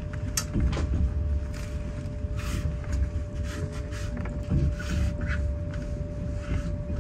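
Inside a Russian long-distance passenger carriage rolling slowly out of a station: a low rumble from the running gear, with irregular clicks and knocks from the wheels and a faint steady hum underneath.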